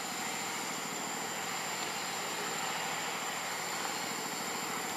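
Steady outdoor background noise: an even hiss with a thin, constant high-pitched whine over it.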